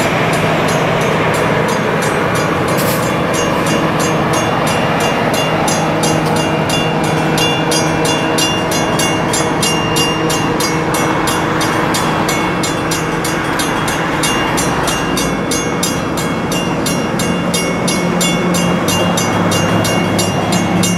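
Passenger train of stainless-steel streamlined coaches rolling past close by: a steady loud rush of steel wheels on rail, with a fast, regular clicking throughout.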